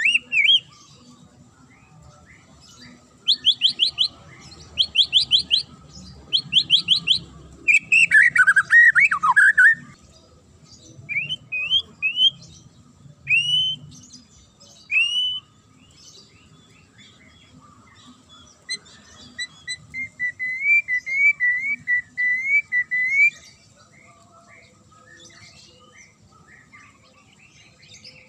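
White-rumped shama (murai batu) singing in separate phrases with pauses between them. The phrases are short bursts of rapid high trills, a tumbling falling phrase, single rising whistles, and later a fast warbling run.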